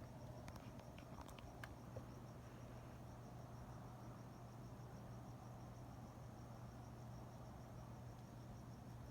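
Faint night ambience: a cricket chirping steadily in a fast, even pulse, over a low steady hum, with a few faint clicks about a second in.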